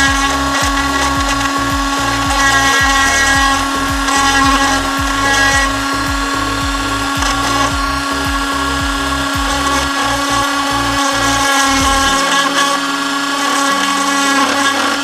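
Parkside mini rotary tool running at a steady high whine at a mid speed setting while its engraving bit scratches into particleboard. A regular low beat runs underneath and stops about twelve seconds in.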